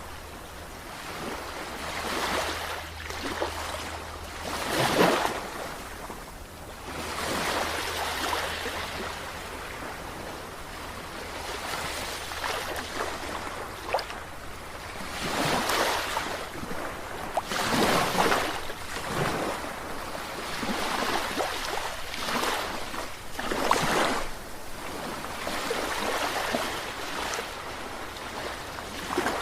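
Sea waves washing in and breaking, a steady hiss of surf that swells and fades every few seconds, the strongest surges about five seconds in and again near eighteen and twenty-four seconds.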